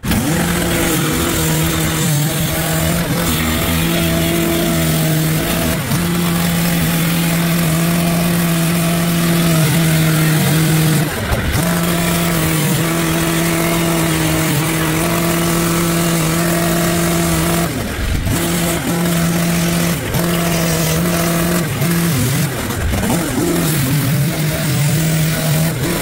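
Gas-powered two-stroke cut-off saw running at high revs, its blade cutting through the steel casing of a water heater tank. The engine holds one steady tone and dips briefly several times, around eleven and eighteen seconds in and again near the end.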